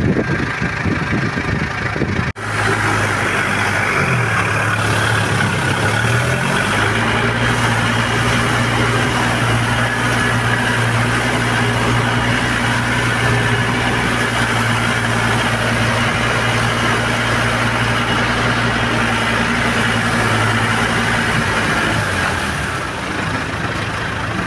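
Farm tractor engine running, heard from the driver's seat. Its pitch dips and comes back up a few seconds in, holds steady for a long stretch, then falls near the end.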